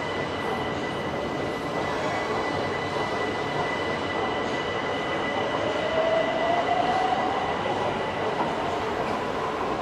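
Subway train noise in a metro station: a steady rushing rumble with a constant high whine. A second whine rises in pitch from about five to eight seconds in.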